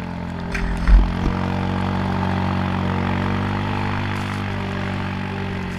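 Quad (ATV) engine running at a steady speed, with a low thump about a second in.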